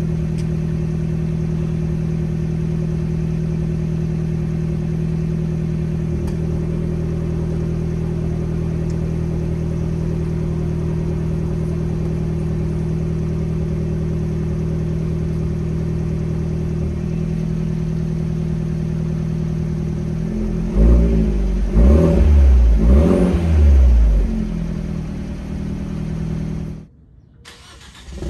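Fiat 124 Spider Abarth's turbocharged four-cylinder idling steadily through a Good Win Racing 2.5-inch crosspipe and a System One exhaust with resonator. About twenty seconds in it is revved three times in quick succession, then settles back, before the sound cuts off suddenly near the end.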